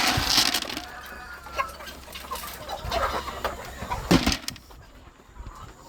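Chickens clucking, with a loud burst of rustling noise at the start and a sharp knock about four seconds in.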